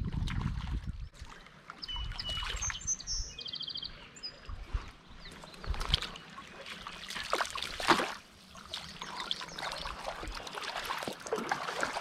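A hooked brown trout splashing in shallow creek water in irregular bursts as it is played in to the bank. A bird chirps briefly two to three seconds in.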